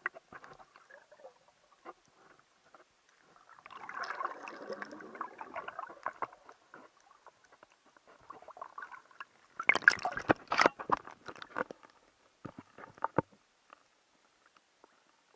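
Underwater sound picked up by a GoPro action camera in shallow water: scattered clicks and crackles, a stretch of gurgling water a few seconds in, and a cluster of louder knocks and splashes about ten seconds in, fading out near the end.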